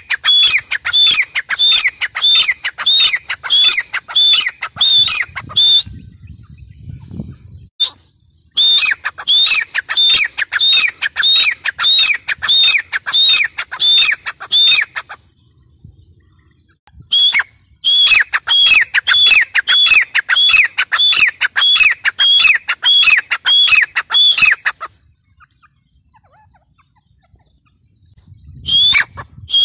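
Gray francolin calling: loud, shrill notes repeated about twice a second, each dropping in pitch, in three long bouts of several seconds with short pauses between, a fourth bout starting near the end.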